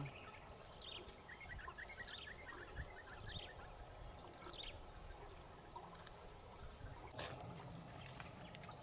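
Faint riverside ambience: a steady high insect drone with birds chirping, including a quick run of chirps about a second in. A single sharp click near the end.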